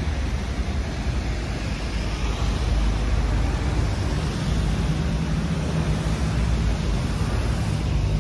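Steady low rumble of road traffic on the bridge, with wind buffeting the microphone.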